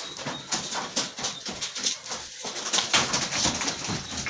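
Backyard chickens calling, with scattered knocks and rustling close by.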